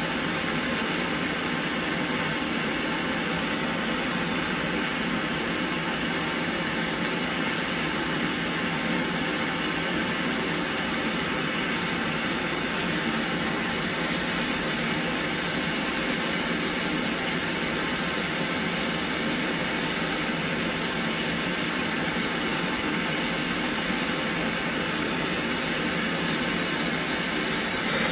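Handheld gas torch on a yellow fuel cylinder burning with a steady hiss, its flame heating the fuel tank of an M1950 gasoline stove for brazing.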